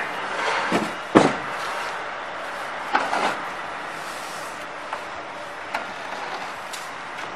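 Green steel chalk-mould boxes being handled in a wooden crate: a few clunks and knocks, the loudest about a second in and another about three seconds in, with lighter clicks after, over steady background noise.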